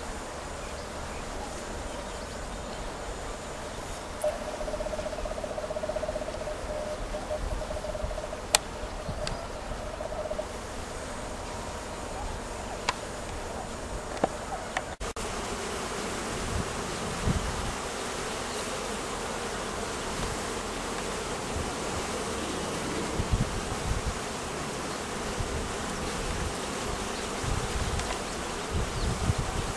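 Honeybees buzzing. The first half carries a steady hum of a single bee held for several seconds, with one sharp click. After a change about halfway through comes a denser buzz of many bees, with low bumps underneath.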